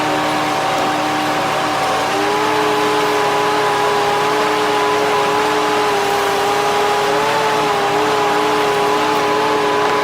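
Engine of a tree-cutting machine running at high speed. Its pitch steps up about two seconds in and then holds steady.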